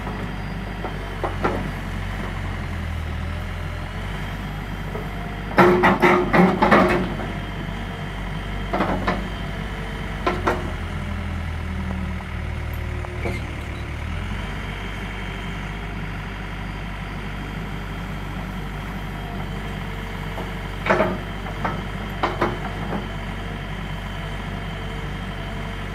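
Yanmar 4TNE98 four-cylinder diesel of a Neuson 8002 RDV mini excavator running steadily while the boom and arm are worked, the engine note heavier under hydraulic load for stretches in the first half. A run of clanks about six seconds in is the loudest sound, with a few more knocks around nine and ten seconds and again near the end, from the moving arm and skeleton bucket.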